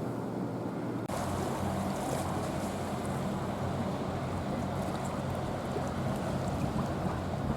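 Car ferry's diesel engines running with a steady low hum as the ship comes in. About a second in, a rushing wash of wind and water noise joins it.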